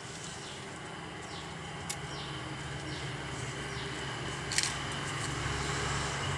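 A machine's steady low hum, growing louder toward the end. Two sharp clicks, about two seconds in and near the end, and a few faint, short, high chirps that fall in pitch.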